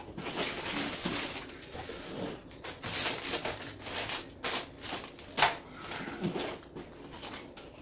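Plastic anti-static bag crinkling and a cardboard box being handled as a bagged motherboard is packed back into its box and the lid is folded shut, with a run of irregular sharp clicks and rustles.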